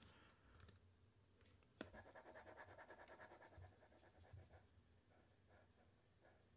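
Near silence: room tone with a faint click about two seconds in, followed by a second or so of faint, rapid scratching.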